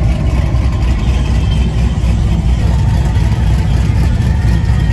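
Cars and a lowered pickup truck cruising slowly past, with a steady, deep engine and exhaust rumble.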